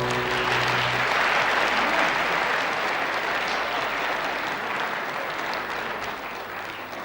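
Audience applauding at the end of a stage performance, with the last held note of the music fading out in the first second; the clapping eases off a little toward the end.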